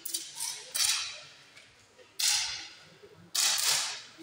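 Air gun shots on an indoor range from several competitors, irregularly spaced: one faint shot at the start, then three louder ones, each a sharp crack whose hiss fades over about half a second.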